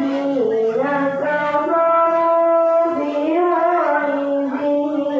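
A boy qari reciting the Quran in melodic qira'at style, his voice amplified through a microphone, holding long notes and sliding down between them in ornamented turns.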